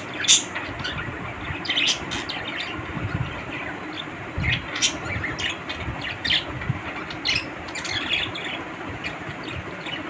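Pet budgerigars chirping and squawking in short, scattered calls, over a low steady rumble.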